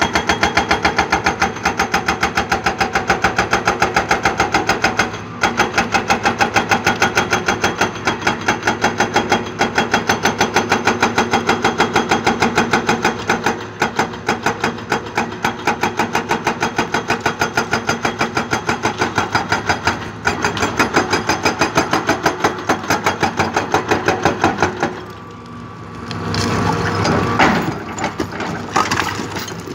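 Hydraulic breaker hammer on a Hitachi ZX200 excavator pounding rock in rapid, even blows, with a few brief pauses. The hammering stops about 25 seconds in, and a rougher, irregular knocking and rumble follows.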